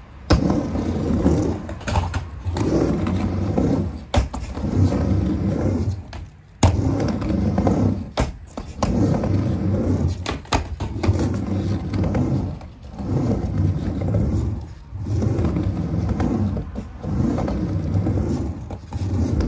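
Skateboard wheels rolling on a mini half-pipe ramp as the rider pumps back and forth, a rumble that swells and fades about every two seconds with each pass up and down the walls. Sharp clacks come every couple of seconds.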